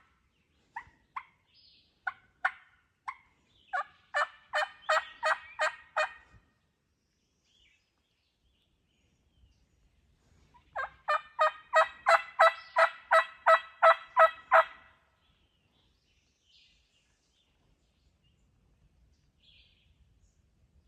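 Turkey yelping in two runs of evenly spaced notes. The first run starts sparse and speeds up, and after a pause of about four seconds a second, steady run of some fifteen yelps follows at about four a second.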